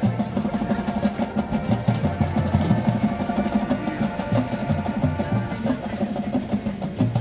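Marching band playing: the drumline keeps a fast, steady pattern on the drums under held chords from the winds and brass.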